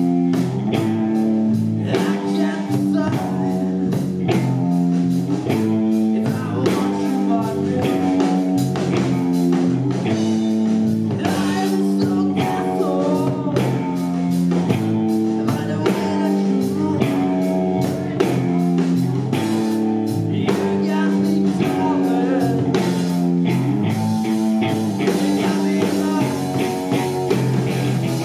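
Live blues-rock band playing: electric guitar, electric bass and drum kit in a steady, driving groove.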